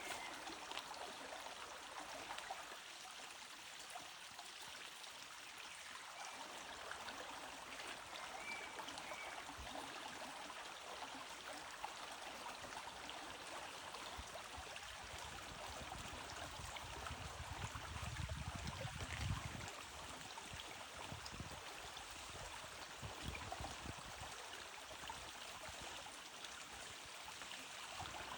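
Stream running steadily, an even rush of flowing water. A low rumble swells for a couple of seconds about two-thirds of the way through.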